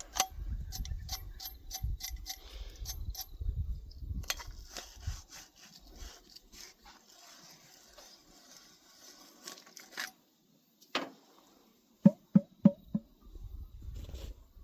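Small tool scraping and clicking against a metal thread as old glue is cleaned out of the pump socket's fine thread, busiest in the first few seconds, then quieter with a few scattered clicks. Near the end come four short, sharp sounds in quick succession.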